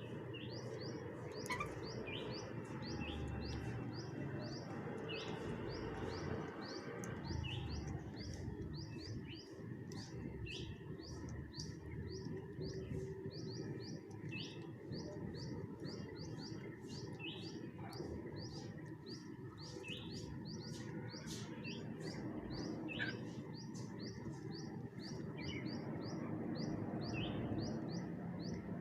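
Birds chirping: a dense, unbroken run of short high chirps, several a second, over a steady low background rumble.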